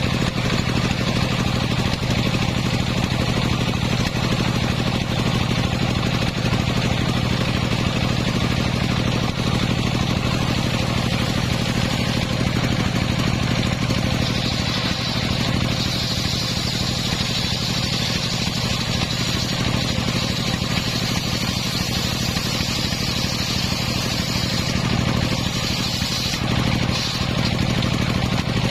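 The engine of a homemade circular sawmill runs steadily throughout. From about halfway in until near the end, a higher hissing whine joins it as the blade cuts through a coconut-palm trunk.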